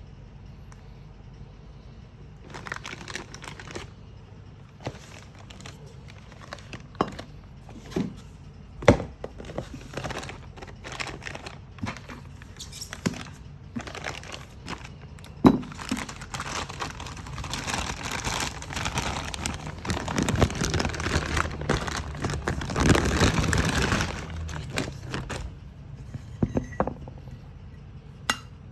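Packaging being unwrapped and handled: crinkling and rustling with scattered sharp clicks and knocks, building to a dense stretch of rustling in the second half before quietening near the end.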